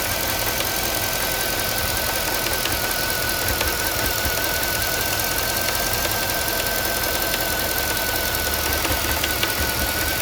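Mercedes-Benz M273 5.5-litre V8 idling with an irregular, non-rhythmic rattle and scattered ticks over a steady high whine. The rattle is an undiagnosed fault that the owner thinks could involve the variable intake manifold, such as a broken lever, or the cooling system.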